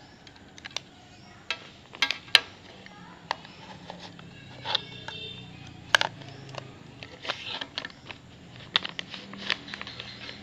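Handling noise: irregular sharp clicks and taps of a phone being handled close to its microphone.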